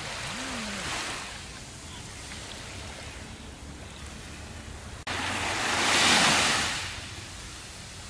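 Small waves washing up on a sandy beach in a steady hiss of surf, with one louder wave that comes in abruptly just past halfway, swells and fades over about two seconds.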